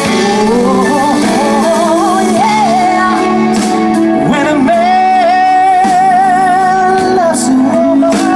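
A woman singing a pop song with a live band of drums, congas, electric guitar and keyboard. In the middle she holds one long note with vibrato.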